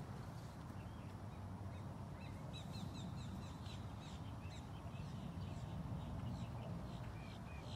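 Small birds chirping in quick runs of short, high calls, starting about two and a half seconds in, over a steady low rumble.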